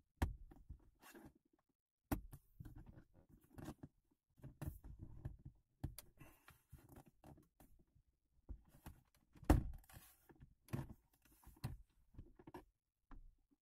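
Plastic centre-console trim panel around the handbrake of a Nissan Qashqai J10 being pulled upward by hand off its four retaining pegs: irregular plastic knocks, clicks and rustling, with the loudest thump about two-thirds of the way through.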